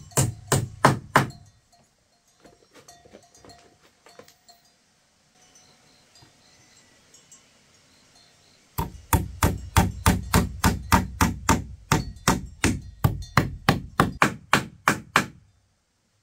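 A tool striking wood in quick, even blows, about three a second. A short run at the start gives way to a few lighter knocks and a pause, then a longer run of heavier strikes begins about nine seconds in.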